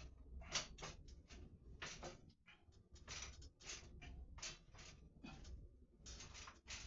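Faint, irregular clicks, taps and rustles, a few each second: handling noise from fitting an LED light strip to a wall and getting onto a small metal step ladder.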